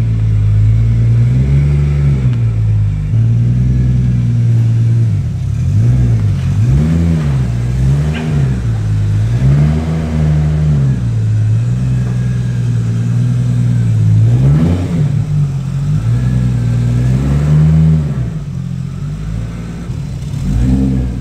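Tuned Nissan Skyline R33's straight-six engine idling, blipped repeatedly with short throttle revs that rise and fall quickly, several in a row.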